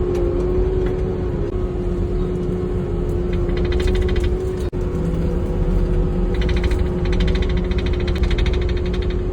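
Engine running steadily with a constant whine over a low rumble, and two spells of fast, even rattling clatter partway through. The sound cuts out for an instant about halfway.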